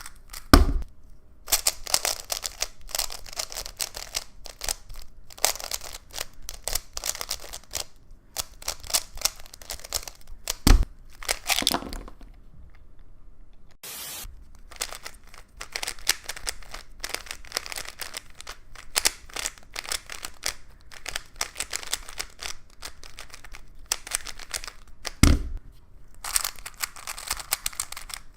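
Plastic speed cubes being turned fast, a dense run of clicking and clacking layer turns, in several separate stretches with short breaks between them and a few sharper knocks.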